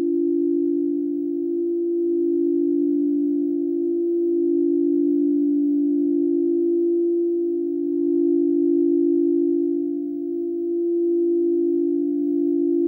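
Chakra-tuned frosted crystal singing bowls being rimmed with mallets, several ringing together in sustained, steady tones. The tones swell and fade in a slow pulse every couple of seconds.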